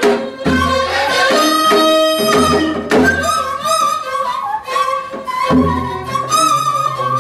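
Korean traditional ensemble playing: plucked gayageum zithers, a bowed haegeum and a daegeum flute weaving a wavering melody over slow janggu hourglass-drum strokes.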